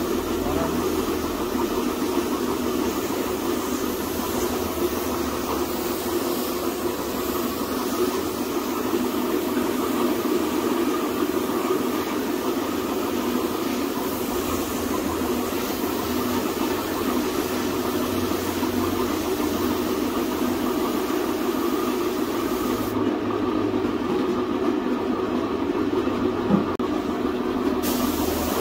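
Steady machine drone with a hiss over it. The hiss drops away for about five seconds near the end, and there is a single short knock just before the end.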